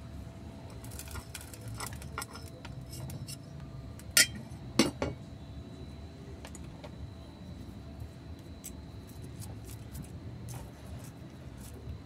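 Gritty potting mix with pumice grains being poured from a plastic trowel into a small ceramic pot and pressed down, making scattered small clicks and light scratchy ticks. Two sharper clicks, much louder than the rest, come about four and five seconds in.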